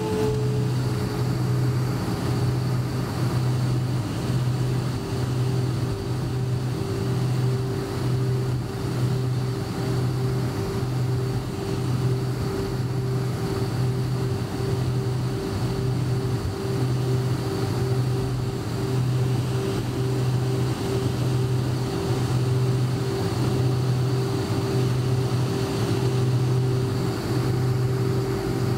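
The four Lycoming LF507 turbofans of an Avro RJ100, heard from inside the cabin while the aircraft taxis. There is a steady engine whine that settles slightly lower in pitch in the first second, over a low drone that throbs a little more than once a second.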